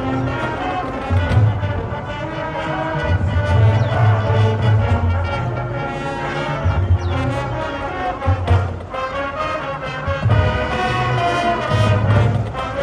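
A marching band playing, with brass holding sustained chords over repeated low bass notes.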